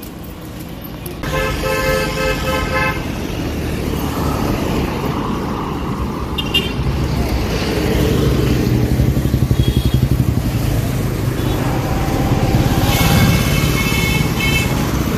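Road traffic passing close by: engines of motor scooters and cars, with vehicle horns honking. There is a horn of about a second and a half about a second in, a short toot around six and a half seconds, and another horn near the end.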